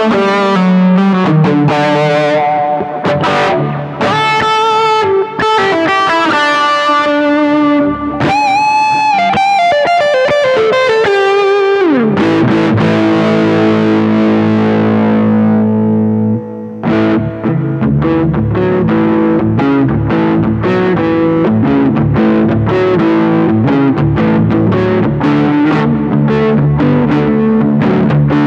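Electric guitar played through the Aesir high-gain distortion pedal into an amp. It opens with distorted lead lines with bends and vibrato, then slides down into a held chord about twelve seconds in. After a short break it plays rapid, chopped chord riffing.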